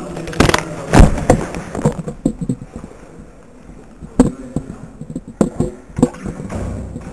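Irregular knocks and clicks, the loudest about a second in and a few more sharp ones spaced through the rest, over a low background.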